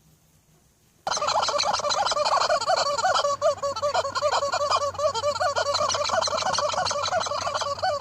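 A flock of turkeys gobbling together in a dense, overlapping chorus, starting abruptly about a second in.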